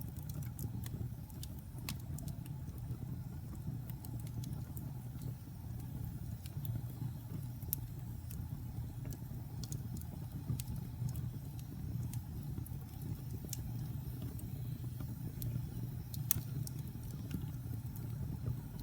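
Wood fire burning in a fireplace: a steady low rumble of the flames with scattered sharp crackles and pops from the burning logs, a few louder ones, the loudest near the end.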